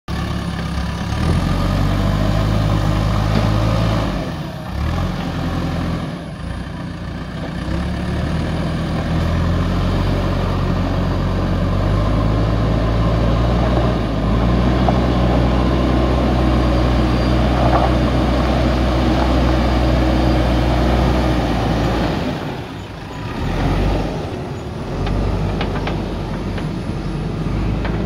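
JCB 3DX backhoe loader's diesel engine running while the machine works. Its note steps up and down several times as the throttle changes, with brief dips about four and a half and twenty-three seconds in.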